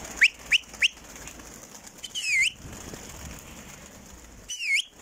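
A flock of domestic pigeons flapping their wings as they take off and circle. Over this come three quick, rising high chirps in the first second and two longer high calls that dip and rise again, about two and four and a half seconds in.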